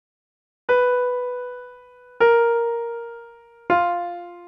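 Three single keyboard notes in a pitch-comparison listening test, struck about a second and a half apart and each dying away. The second is slightly lower than the first, and the third is clearly lower.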